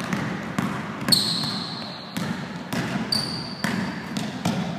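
Basketball being dribbled in a quick, steady rhythm of about two bounces a second, the footwork of a crossover and change-of-direction drill. Twice, about a second in and again about three seconds in, a short high squeak of sneakers planting on the court.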